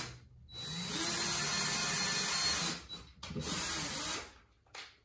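Cordless drill spinning up and drilling small pilot holes for blind mounting brackets: a run of about two seconds, a brief pause, then a shorter burst that stops about a second before the end.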